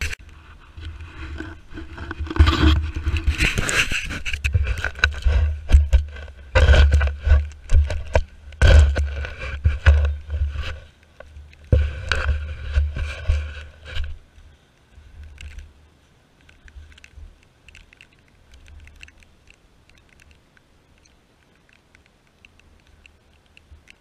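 Spade digging into wet turf and soil: a run of irregular scraping and crunching strokes of the blade through earth. It goes on for about fourteen seconds, then drops to faint scuffs.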